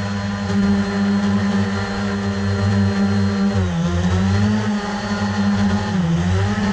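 ZLRC SG906 Pro quadcopter's brushless motors and propellers whirring steadily, heard up close from a GoPro mounted on the drone. The pitch drops briefly and comes back up twice, near the middle and just before the end.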